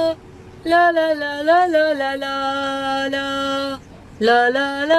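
Music: a slow melody of long held notes, breaking off briefly twice.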